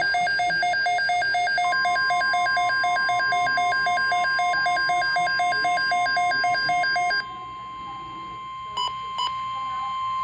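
Weather radio alert: the receiver's built-in alarm beeps rapidly, about four beeps a second. About two seconds in, the broadcast's steady 1050 Hz NOAA warning alarm tone joins it, signalling an incoming Severe Thunderstorm Watch. The beeping stops about seven seconds in, leaving the steady tone, with two short clicks near the end.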